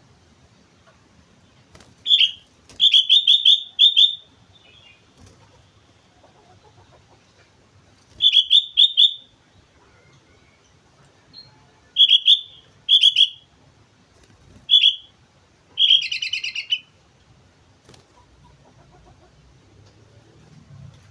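Sooty-headed bulbul (kutilang) singing vigorously in short, high phrases of quick repeated notes. Six or so phrases come a second or more apart, with longer pauses between some of them.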